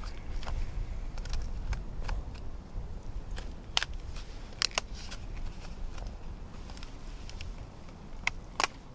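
Stiff plastic blister packaging being cut and pried open: a run of sharp clicks and crackles, the loudest a few seconds in and again near the end, over a steady low rumble.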